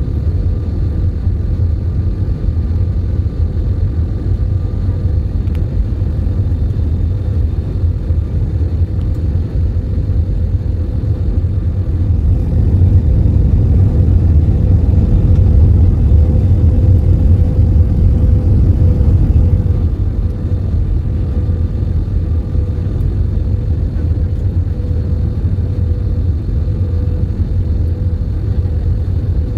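Jet airliner cabin noise at a window seat over the wing: a steady low rumble of engines and airflow with a faint steady whine. It swells for several seconds midway, then settles back to its earlier level.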